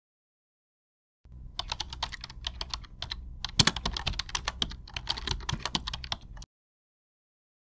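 Typing sound effect: rapid key clicks, starting a little over a second in and running for about five seconds as title text is typed out.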